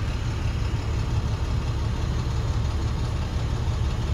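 Steady low rumble of engine and road noise heard from inside a moving vehicle.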